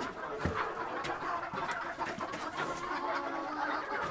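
Chickens clucking quietly, with scattered small clicks and knocks.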